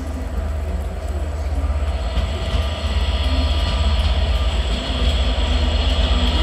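Train running close by: a deep rumble that grows steadily louder, with a hiss joining it about two seconds in.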